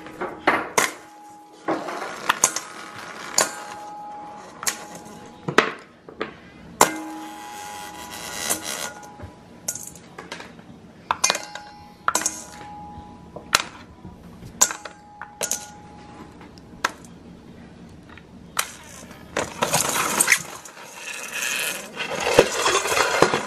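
Chunks of dry ice dropped one at a time into a stainless steel mixing bowl: more than a dozen sharp clinks and knocks, several leaving the bowl ringing briefly. Near the end come a few seconds of scraping and handling noise as the bowl is moved.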